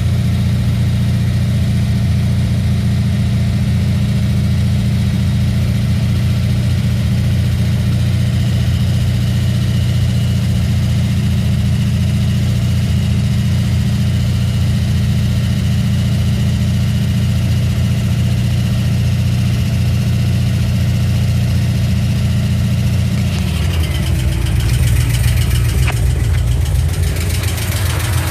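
LS7 7.0-litre V8 with a Livernois stage 2C camshaft running steadily at idle, showing the lifter noise the owner is documenting. Near the end the sound changes, with a fast ticking clatter coming forward.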